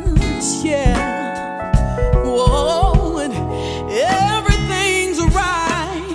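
Live soul band music: a lead singer's sliding, wavering vocal runs over a band with bass and regular drum hits.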